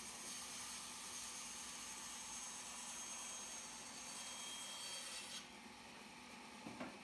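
Bandsaw cutting through a pine board: a steady hiss of the blade in the wood over the machine's low hum. The cutting noise stops abruptly about five seconds in, leaving only the hum, and a short knock follows near the end.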